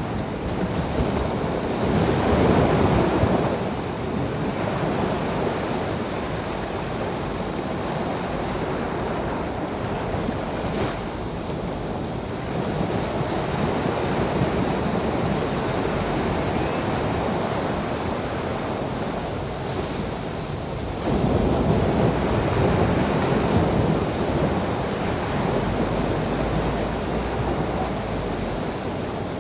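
Ocean waves breaking and washing on a shore, with a steady surf hiss and two louder waves, one about two seconds in and another about twenty seconds in; wind buffets the microphone.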